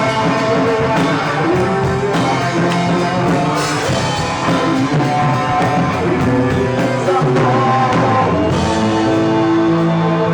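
Live band playing a pop-rock song between sung lines: a melodic lead line over bass and drums with steady cymbal ticks.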